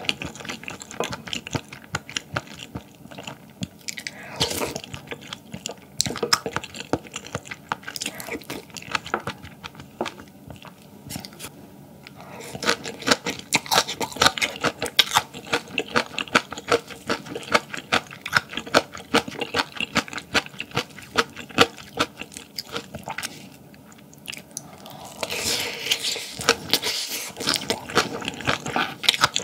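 Close-miked eating: chewing with crisp crunching and mouth clicks, coming in bouts with a couple of brief lulls.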